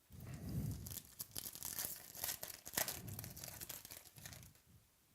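Trading card pack wrapper crinkling and tearing as it is opened, an irregular run of crackles that stops about four and a half seconds in.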